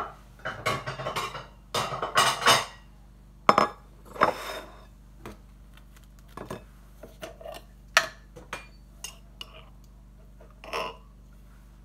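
Kitchenware clattering: a plate and a glass jar handled on a wooden counter, with clinks and knocks. There is a busy run of knocks in the first few seconds, then sparser, lighter clicks.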